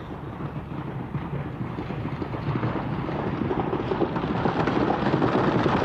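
Horse-drawn coach rumbling closer, the noise growing steadily louder.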